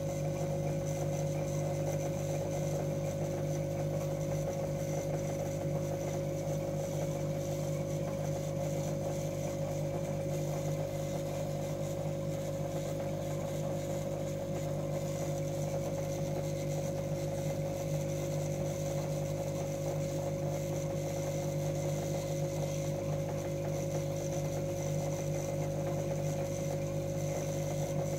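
Steady mechanical hum of an aquarium air pump driving the tank's bubbler, an even drone that does not change.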